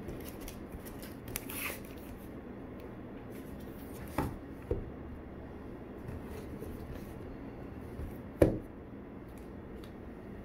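Cardboard and plastic packaging of a boxed vape kit being handled, with rustling and a few sharp knocks and taps, the loudest about eight seconds in, over a steady low background noise.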